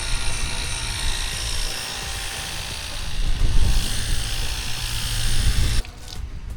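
Ryobi cordless pressure washer running and spraying: a steady hiss of spray over a low motor-and-pump hum, which cuts off suddenly near the end.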